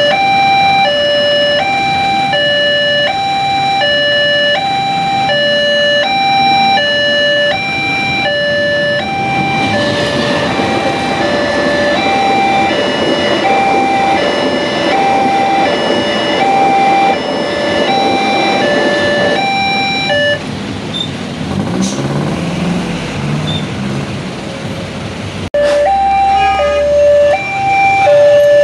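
Railway level-crossing warning alarm sounding two alternating electronic tones, about two a second. A passing train's noise builds up over it about nine seconds in and lasts until about twenty seconds, when the alarm stops; the alarm starts again near the end.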